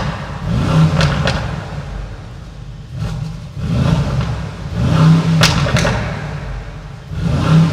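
Brabus G900's twin-turbo V8 blipped through its Brabus exhaust about four times, each rev rising and falling, with sharp crackles from the exhaust as the revs drop. Heard from inside the cabin with the windows down.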